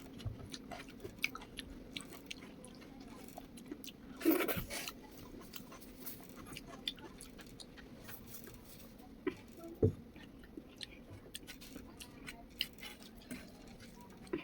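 A person chewing chicken and rice, with wet mouth clicks and smacks throughout. There is a louder bite about four seconds in and a low thump near ten seconds.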